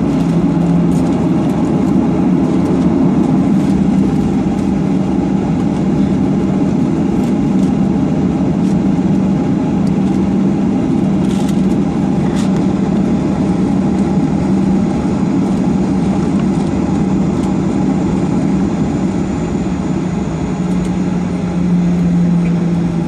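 Boeing 737-800's CFM56-7B turbofan engines running at high power for the takeoff roll, heard inside the cabin: a loud, steady engine noise with a constant low hum.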